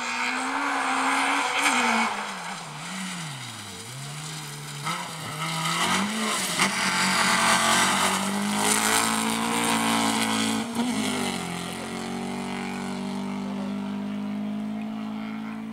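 Rally car at speed on a gravel stage. The engine note drops and rises again as the driver comes off the throttle and back on, and the car passes loudly with gravel hissing and spraying under the tyres. It then holds a steadier note as it pulls away.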